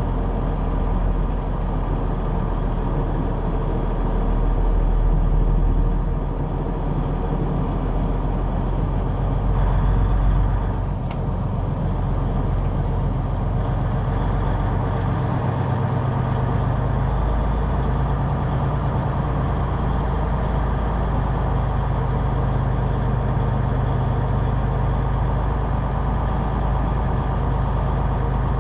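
Semi truck's diesel engine running steadily, with a brief dip about halfway through before it settles into an even hum.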